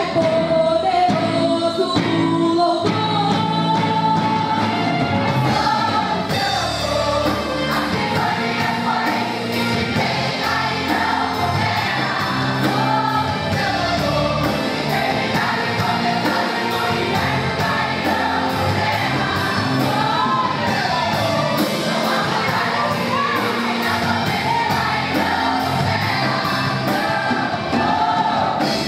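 A women's choir singing a Portuguese gospel praise song with live instrumental accompaniment. A steady beat comes in about six seconds in.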